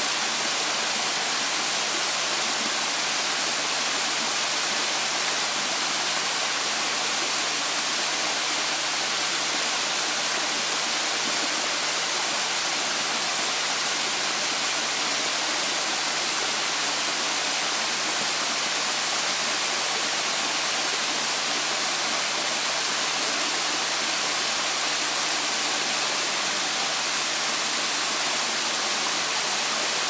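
Steady rush of a tall waterfall pouring and splashing down a steep, tiered rock face, without change.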